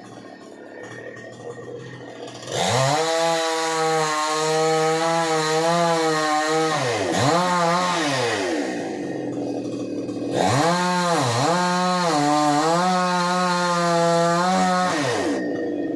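Chainsaw engine revving up a couple of seconds in and running at high, steady speed, dipping twice before dropping back. It revs up again for about five more seconds, then winds down near the end.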